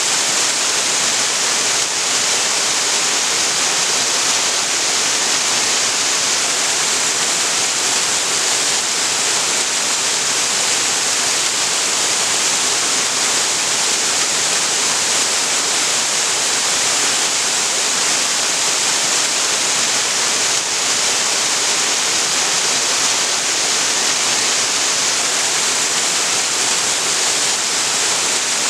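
Waterfall's steady, unbroken rush of falling water.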